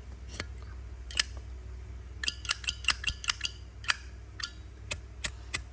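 Zippo lighter's hinged metal lid being flicked open and snapped shut, a series of sharp clicks with a quick run of them in the middle. The emblems fixed to the lid damp its usual ring, so the clicks sound dull.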